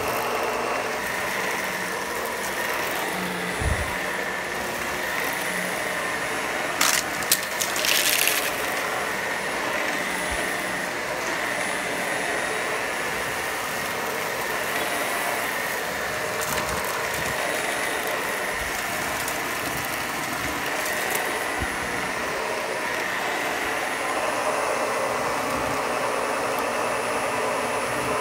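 Shark Rotator Professional Lift-Away upright vacuum running steadily with a high whine, pulling up a test mix of crunchy debris and fluff. There is a low thump about four seconds in, then a brief clatter of hard particles about seven to eight seconds in.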